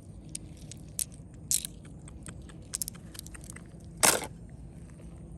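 Irregular sharp clicks and crunching scrapes, with one louder, longer scrape about four seconds in, over a steady low rumble.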